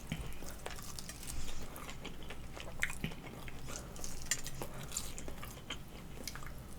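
Chewing and eating chicken wings, with scattered small clicks and taps at the table.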